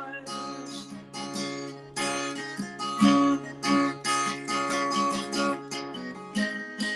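Acoustic guitar strummed and picked, playing out the end of a song, with the last word 'noise' sung at the start.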